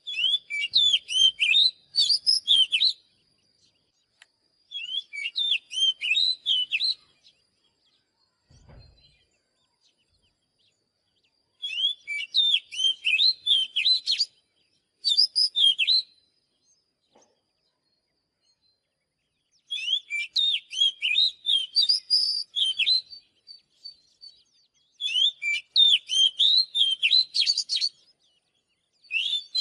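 Oriental magpie-robin singing in bursts of rapid, varied whistled notes, each phrase lasting two to three seconds and separated by pauses of a few seconds.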